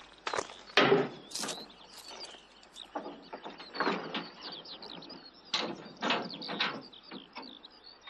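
Padlock and metal fittings on the barred door of a prison wagon being unlocked by hand: an irregular string of metallic clicks and rattles.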